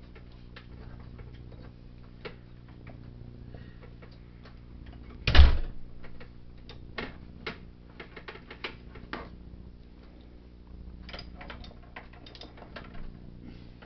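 Hand ratchet clicking in short runs as it works a fastener on a John Deere JX85 mower's shifter cable fitting, with one loud metal clank about five seconds in, over a steady low hum.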